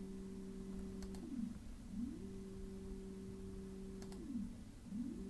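Brushless DC motor under encoder-feedback control, giving a faint steady hum at 1000 RPM that falls away as the motor slows through zero and reverses, then rises back to speed; this happens twice, a little over a second in and again about four seconds in. A short click comes just before each slow-down.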